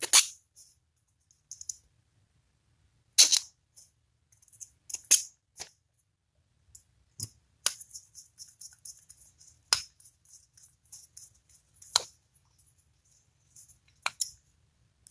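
Small screwdriver driving the case screws into the bottom of an MKS 777 servo: about eight sharp clicks of the driver tip and plastic case being handled, with light scratchy scraping between them as the screws turn.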